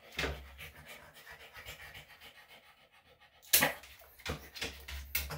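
Senior Bichon/Shih Tzu mix dog panting in quick, short breaths, with one sharp click about three and a half seconds in.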